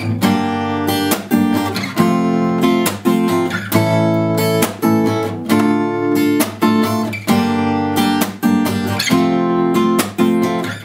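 Cutaway acoustic guitar strummed fast in a down, up-slap, up, down, up pattern. The slap is a percussive stroke where the nails brush down and mute the strings. It cycles through the chorus chords Dm, Gm, F and A.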